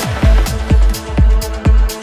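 Progressive electro house music from a DJ mix: a steady four-on-the-floor kick drum about twice a second, with off-beat hi-hats between the kicks over sustained synth chords.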